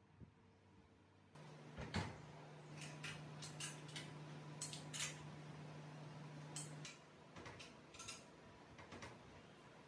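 Faint metal clinks and taps, as of tools and small metal parts being handled, with a steady low hum running for about five seconds in the middle.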